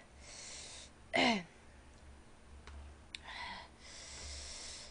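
A woman's breathing close to the microphone: hissing exhales, a brief hum falling in pitch about a second in, a faint click just after three seconds, then another long exhale.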